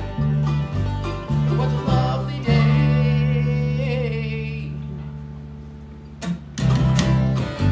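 Unplugged acoustic bluegrass string band playing, with upright bass and acoustic guitar: a plucked rhythm, then a held chord about two and a half seconds in that rings and slowly fades, before the band comes back in loudly near the end.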